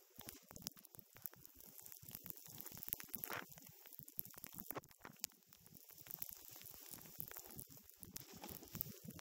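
Snowboard sliding and turning over snow: an uneven scraping hiss with many small crackles.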